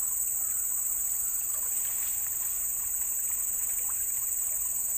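Steady high-pitched chorus of insects, an unbroken drone.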